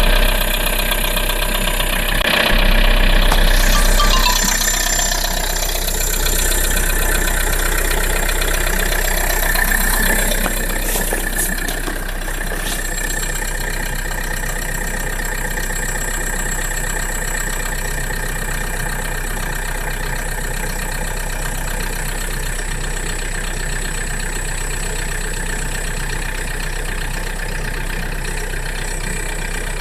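Toyota RAV4 diesel engine idling just after a cold start, with a steady high-pitched whistle over the engine note. It is louder for the first few seconds after starting, then settles into an even idle.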